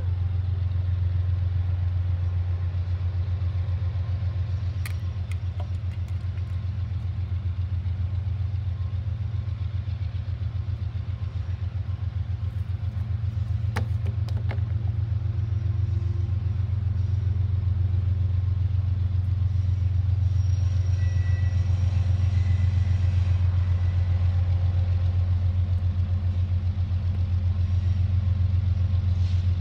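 Double-stack intermodal freight train rolling past: a steady low rumble from the well cars' wheels on the rails, with two sharp clicks along the way.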